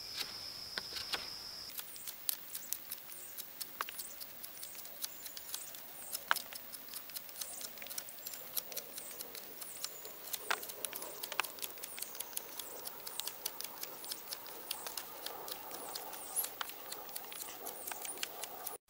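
Knife whittling points onto the split tines of a fresh-wood frog gig: dozens of short, irregular slicing cuts and scrapes, the wood coming off easily.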